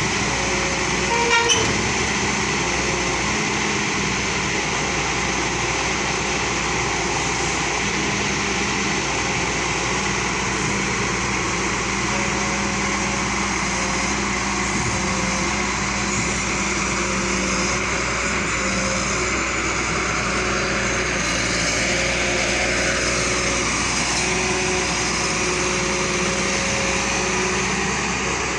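Heavy diesel engine running steadily under load, with a brief louder sound about a second in.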